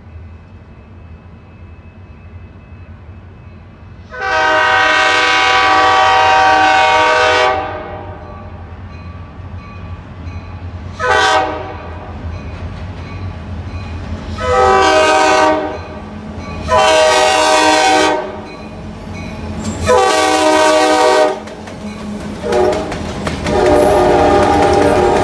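Wisconsin & Southern diesel locomotive's air horn sounding a series of blasts: a long one of about three seconds, then a short toot, several blasts of about a second and a half, another short toot and a last blast, all over a steady low rumble of the train.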